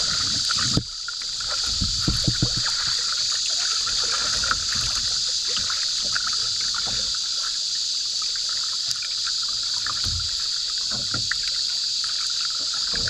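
Double-bladed paddle dipping and pulling through the water beside a cedar strip canoe, with irregular splashy strokes, over a steady high drone of insects from the riverbank trees.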